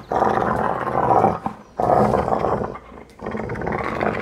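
Rottweiler growling in three long, drawn-out bouts while mouthing the owner's hand and forearm. It is a fierce-sounding growl in a bite-training game, not real aggression, as the owner puts it.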